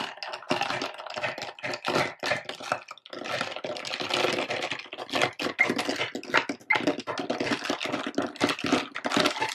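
Ice cubes clinking and rattling in a tall glass as a glass straw stirs the drink: a fast, continuous clatter of small knocks, with a brief pause about three seconds in.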